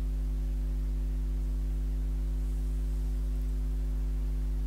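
Steady electrical mains hum: a low drone with a ladder of higher tones stacked above it, unchanging in pitch and level.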